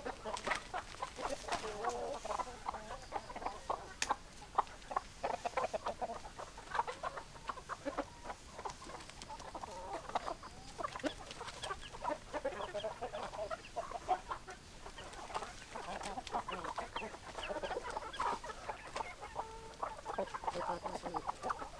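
A flock of hens clucking, with many short overlapping calls and frequent sharp clicks.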